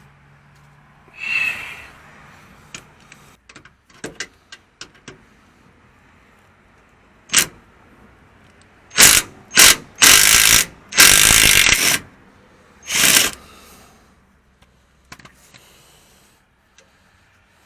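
Low-powered impact wrench hammering in several short bursts on a 15 mm sway bar bushing bracket bolt, with a few light tool clicks before it.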